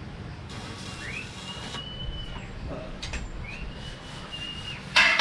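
Two long whistled notes about two seconds apart, each sliding up, holding a steady high pitch and then breaking off. Music starts loudly right at the end.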